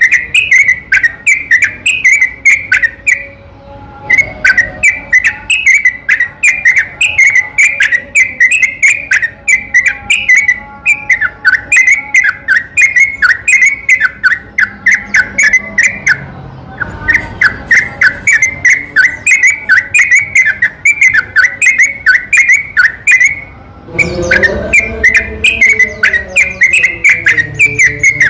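Yellow-vented bulbul (trucukan) lure recording: a long, rapid run of repeated chattering song notes, about four a second, pausing briefly a few times. A lower, falling sound comes in near the end.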